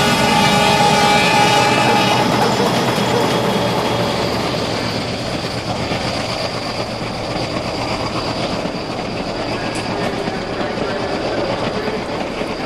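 Diesel locomotive sounding its horn, a held chord of several tones that cuts off about two seconds in, then the steady running noise of the passing train, slowly fading.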